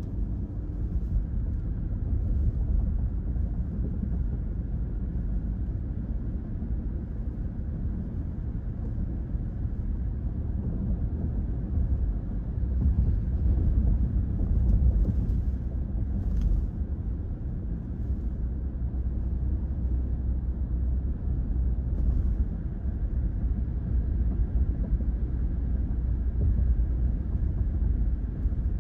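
Steady low road and tyre hum inside a moving car's cabin, driving on a highway.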